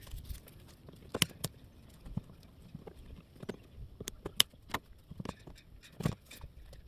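Irregular sharp clicks and clacks of channel-lock pliers working the clamp on the intake tube, with knocks of tool on clamp and plastic tube, a few louder snaps among them.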